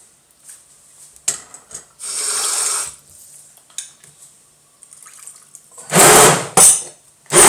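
A hand-held stick blender in a plastic jug of thick fruit shake, switched on in two short loud bursts about six seconds in and then starting to run near the end. Earlier, liquid is poured briefly from a glass into the jug.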